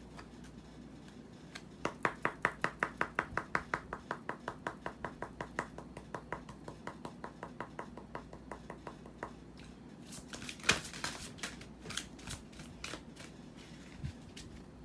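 Oracle cards being shuffled in the hands: a fast, even run of light card taps, about six a second, that slowly fades away, then a few scattered louder card slaps in the last few seconds.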